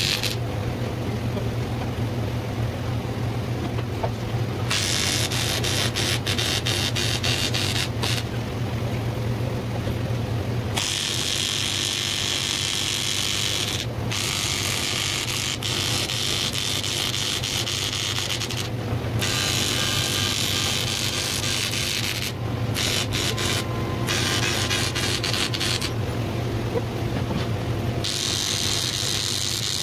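TIG welding arc on aluminium tubing, hissing and crackling in stretches of a few seconds that break off and restart several times as each weld is laid, over a steady low hum.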